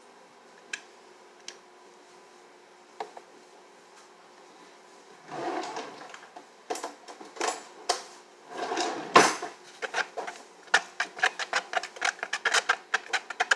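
A few single clicks, then a spoon scraping and clicking rapidly against a bowl as white glue and food colouring are stirred together.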